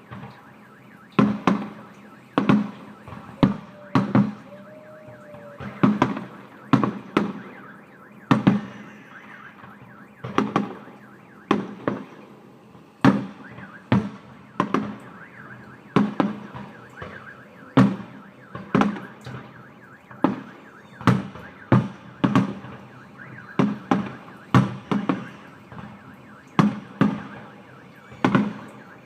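Fireworks going off in a long, uneven series of sharp bangs, about one a second, each trailing off in an echo.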